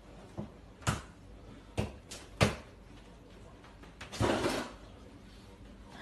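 Kitchen clatter: about five sharp knocks in the first two and a half seconds, then a short rushing noise about four seconds in, as things are handled at a kitchen counter.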